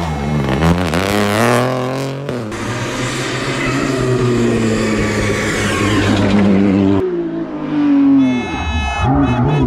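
Rally car engines revving hard, the pitch climbing through each gear and dropping back at the shifts. The sound breaks off suddenly twice, about two seconds in and again near the end, as a different car takes over.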